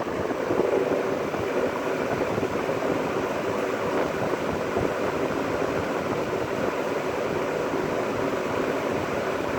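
Vintage GE W-2 box fan running on high, a steady loud roar of moving air that builds up within the first second as the motor comes up to speed.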